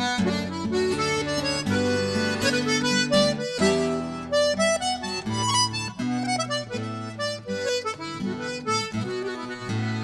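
Button accordion playing a quick-moving tune in Irish traditional style, the melody running over held lower notes.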